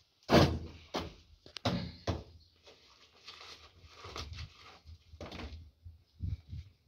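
Several knocks and thuds, the loudest about a third of a second in, with scraping and rustling in between, as a PVC conduit and its elbow bend are handled and pushed into place at the base of a wall.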